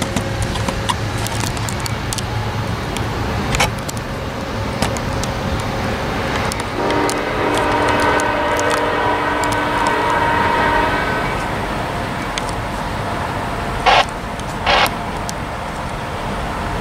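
Train horn sounding one long blast of about four seconds, from an approaching Amtrak Pacific Surfliner train, over a steady low rumble. Two brief loud bursts follow a few seconds later.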